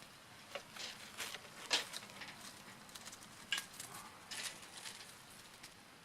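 Small wood campfire crackling, with irregular sharp snaps a few times a second at uneven intervals.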